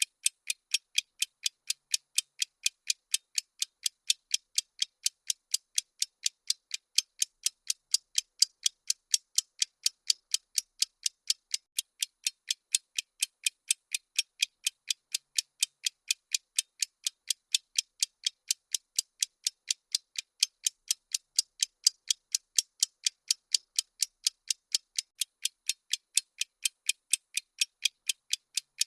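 Bomb-timer countdown ticking sound effect: crisp, high, evenly spaced clock ticks repeating rapidly at a constant rate.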